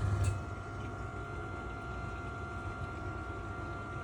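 Milkshake vending machine's motor hum cuts off with a click about a third of a second in, leaving a quieter steady machine hum with a faint thin whine.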